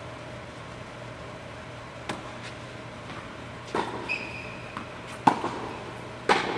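Tennis ball struck by rackets in a doubles rally in a large indoor tennis hall: four hits spaced a second or so apart, the loudest about five seconds in, with a short squeak about four seconds in. A steady low hum runs underneath.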